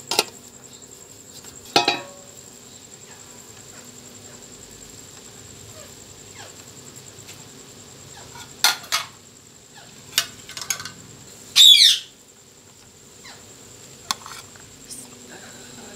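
Steel cookware and utensils clinking and knocking a few times, short sharp strikes scattered through, with one brief high warbling squeal just before twelve seconds in. A faint steady high whine sits underneath.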